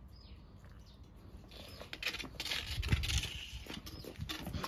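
Plastic pool leaf-skimmer net scraping and knocking on paving stones, mixed with a small child's quick footsteps. It starts about a second and a half in as a patter of irregular scrapes and taps.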